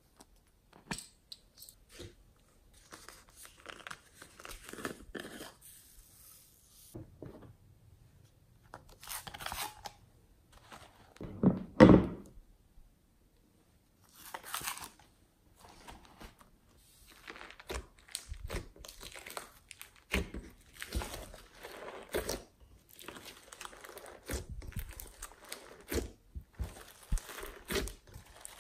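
Hands squeezing a foam squishy and working soft clay and glossy slime: irregular squishing, sticky crackling and tearing sounds, with one loud thump about twelve seconds in.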